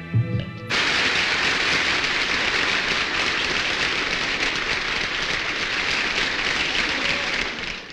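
A large crowd applauding, many hands clapping at once: it breaks out suddenly a moment in, holds steady, and dies away near the end.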